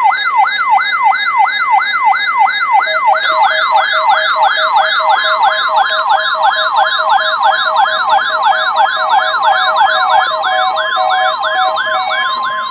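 NOAA Weather Radio warning-alarm attention signals sounding as the weekly test: several layered electronic siren wails, each rising and falling about three times a second, over steady tones. These signals are what set off weather-alert receivers.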